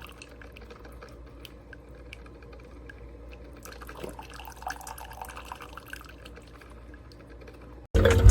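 Faint dripping and trickling of liquid with scattered light ticks. Music starts suddenly near the end.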